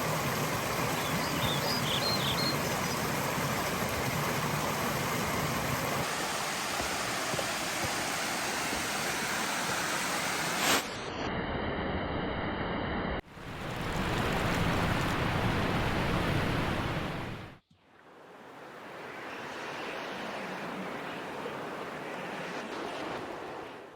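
Steady rushing water of waterfalls, heard in several clips with sudden cuts between them. For about two seconds in the middle a steady high-pitched buzz of several tones sits over the water.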